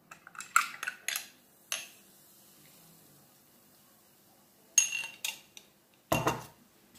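Metal spoon clinking against a small drinking glass while stirring yeast, a quick run of ringing clinks. After a quiet pause come a few more clinks and a heavier knock near the end as the glass and spoon are handled and set down.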